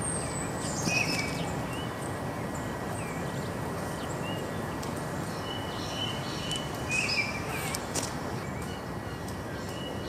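Wild songbirds chirping and calling off and on, in short notes, with a high falling call about a second in, over a steady outdoor hiss of background noise.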